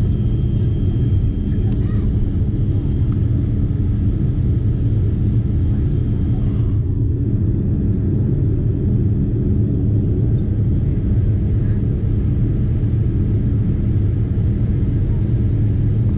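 Steady low rumble of a Boeing 787's GE jet engines and rushing airflow, heard from inside the passenger cabin during the climb after takeoff. A faint high tone above it drops away about seven seconds in.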